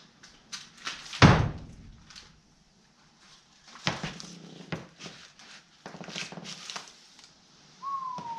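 Cardboard packing crinkling and rustling as it is worked off a double-bit axe head, with a heavy thump about a second in and lighter knocks around four seconds. A dog whines briefly near the end.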